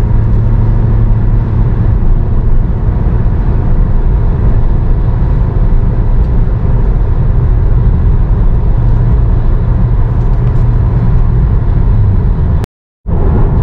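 Steady road and engine noise heard inside a moving car's cabin, a low even rumble with a constant hum; it drops out abruptly for a moment near the end.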